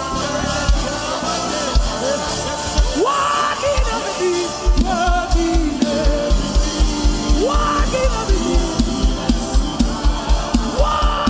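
Gospel worship band music: a gliding melody line over a drum kit whose kick drum settles into a fast, even beat about halfway through.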